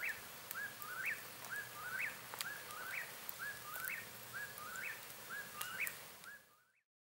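A small animal's call repeated about once a second, each a short low note followed by a quick rising chirp, over a soft outdoor hiss; it stops just before the end.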